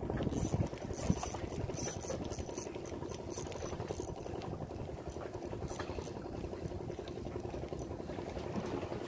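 Steady low hum of a boat engine over wind and water noise. In the first two seconds there is rustling and scraping from a fleece sleeve brushing against the microphone.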